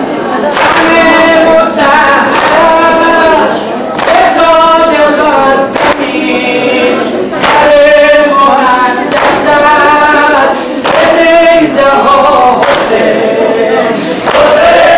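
Unaccompanied chanted singing in long, wavering melodic phrases, loud, with short breaks between phrases.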